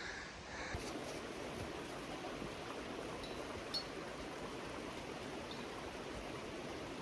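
Steady rush of a mountain creek's running water, with one faint tick partway through.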